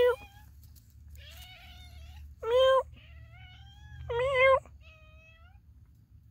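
A cat and a man imitating it trade meows. Loud, short meows at a steady pitch come about every two seconds, and softer, drawn-out meows that rise in pitch fall between them.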